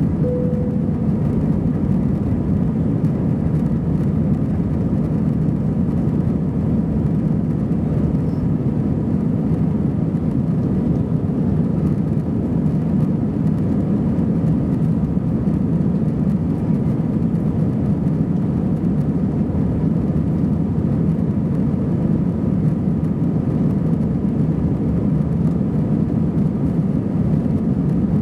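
Steady cabin roar inside an Airbus A320-214 airliner from a rear seat: the CFM56 jet engines and airflow, running evenly, with a faint steady tone above the low rumble.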